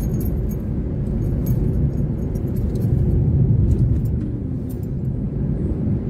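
Steady low rumble of a car's engine and tyres heard inside the moving car, with a few faint light clicks.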